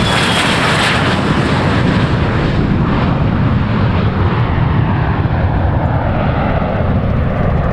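Twin-engine business jet at takeoff thrust, lifting off and climbing away: a steady jet roar, heaviest in the low rumble, whose high hiss fades from about two to three seconds in as the aircraft moves off.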